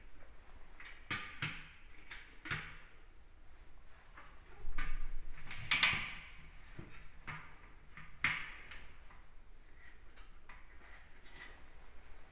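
Clicks, knocks and scraping of hands and tools working on a fire-alarm heat detector and its mounting, in irregular single strikes. A louder, denser stretch of rattling and scraping begins a little under five seconds in and lasts over a second, and one more sharp knock follows a couple of seconds later.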